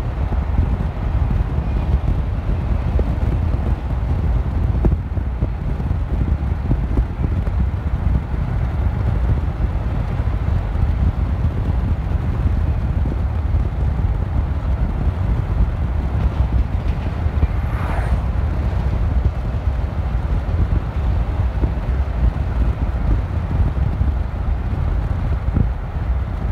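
Wind buffeting on a phone microphone and road noise from a moving car, a dense steady rumble with no speech. A faint, brief wavering whine rises and falls about two-thirds of the way in.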